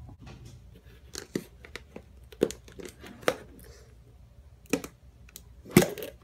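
Thin clear plastic tub crackling and popping as hands squeeze and press it: a handful of short, sharp crackles at uneven intervals, the loudest near the end.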